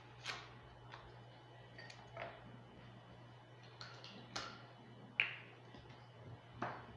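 Light clicks and taps, about seven of them, from bottles, caps and measuring spoons being handled beside a blender, over a faint steady low hum. The sharpest is a short clink about five seconds in.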